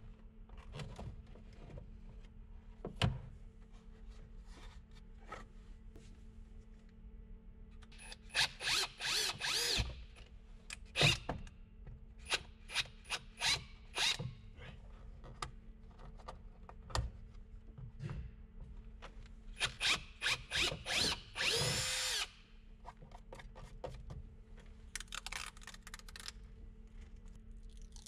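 Power drill run in a series of short trigger pulls, with one longer run of about a second about three-quarters of the way through. Scattered clicks and knocks from handling parts come between the runs.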